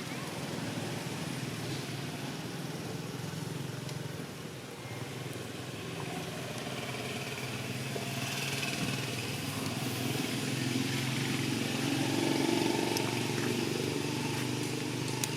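A motor engine running steadily, growing somewhat louder after about eight seconds.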